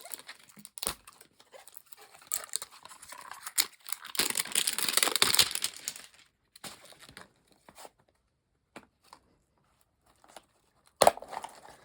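Plastic packaging crinkling and clicking as a tight plastic capsule of blind-bag toy figures is forced open by hand, the crinkling thickest about four to six seconds in, with a sharp click near the end.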